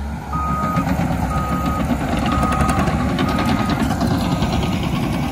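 Cat D6K bulldozer's diesel engine running under load while its backup alarm beeps about once a second as it reverses; the beeping fades out about four seconds in.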